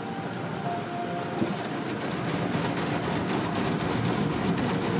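Spinning cloth brushes of an automatic car wash scrubbing and slapping against the car, heard from inside the cabin: a dense, steady rush with rapid fine slaps that grows slightly louder.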